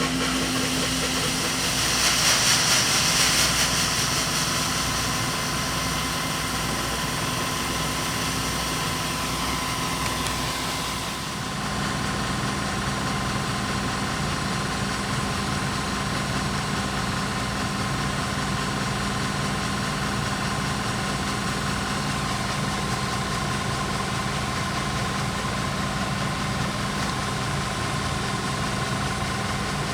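Diesel engine of heavy farm machinery running steadily. A louder rushing noise swells about two to four seconds in, and the engine tone shifts about eleven seconds in.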